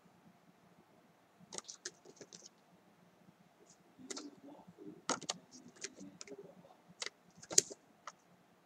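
Paper flash cards being handled and swapped by hand: scattered sharp clicks and short rustles of card stock, the sharpest about a second before the end.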